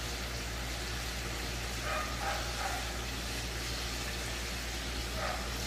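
Steady hiss of chicken pieces deep-frying in a pot of oil. A dog barks faintly a few times about two seconds in and again near the end.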